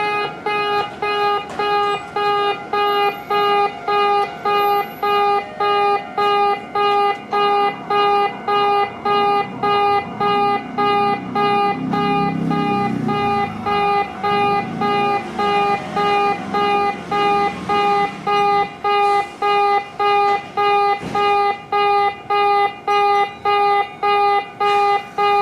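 Electronic level-crossing warning alarm of the old station-premises type, beeping a buzzy "pe-pe-pe" tone about twice a second without a break. A low rumble swells and fades around the middle.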